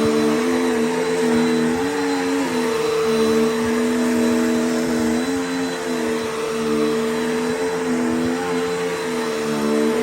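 Dirt Devil Power Max Pet upright vacuum cleaner running steadily, its motor whine wavering slightly in pitch as the load on it changes.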